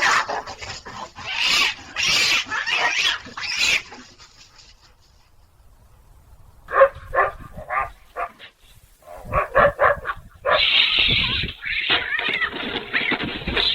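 Animal calls in three stretches: a loud, harsh run of cries for the first four seconds, then a quick series of short sharp calls, then a continuous harsh noise near the end.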